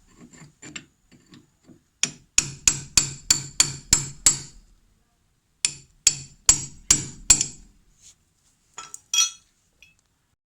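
Hammer blows on a seized brake caliper guide pin, driving it out. A few light taps, then two quick runs of sharp metallic strikes at about three a second, and two last blows near the end. The pin is rusted solid and ungreased.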